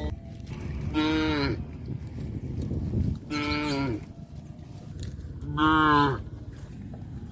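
Cattle mooing: three moos about two seconds apart, each bending down in pitch at its end, over a steady low rumble.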